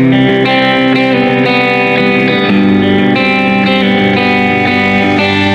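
Background music led by guitar: plucked notes changing about every half second.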